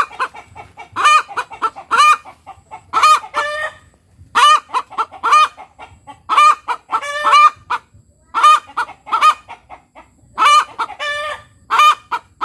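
Kampung hen cackling, a loud repeated 'tok tok petok' call of short clucks building to a drawn-out 'petoook', in phrases every second or two. Hens typically cackle like this after laying an egg.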